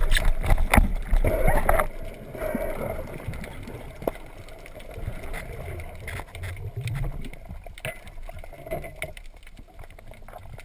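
A speargun shot heard underwater: a cluster of sharp knocks and clatter in the first two seconds as the spear is fired and the shaft strikes fish and rock, then a lower, even water noise with a few scattered clicks.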